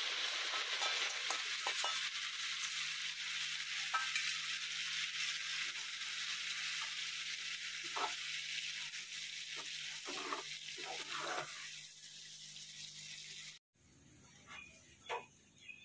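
Steady hiss of falling rain, with a faint low hum beneath it, cutting off abruptly about 13 seconds in; a quieter stretch with a few brief faint sounds follows.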